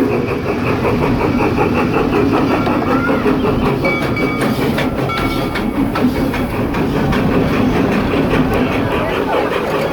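Amusement-park steam train running past on its track, its cars clattering steadily over the rails, with a brief high tone around four to five seconds in.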